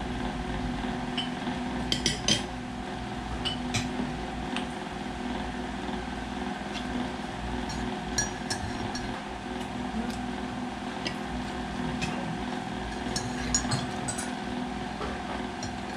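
Forks tapping and clinking against plates while eating, a scattering of short, light clicks over a steady background hum.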